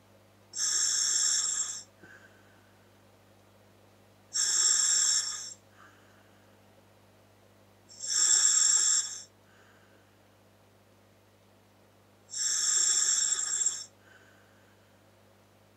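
Breathing through a scuba regulator fitted to a Dräger full-face mask: four loud hissing breaths of about a second each, roughly every four seconds, each followed by a faint short sound.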